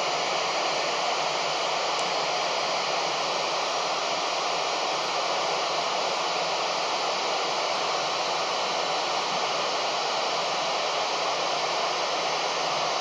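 Steady FM static hiss from a Kenwood handheld 2-metre amateur radio with its squelch open. The loud rush of noise starts as the space station's voice transmission drops out and means no signal is being received between transmissions.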